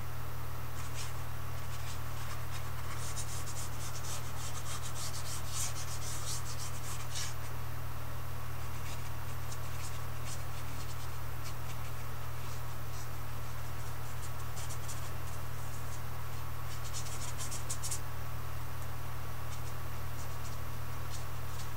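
A paintbrush scratching and dabbing across a canvas in short runs of strokes, thickest early and again near the end, over a steady low hum.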